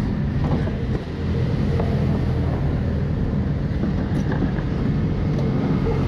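Go-kart engine running at a fairly steady pitch, with a brief dip in level about a second in.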